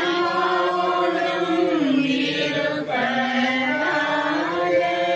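Congregation chanting the sung liturgical response in Tamil to the priest's greeting, voices together in long held notes.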